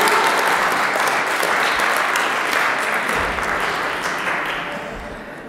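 Audience applauding, the clapping slowly dying away near the end.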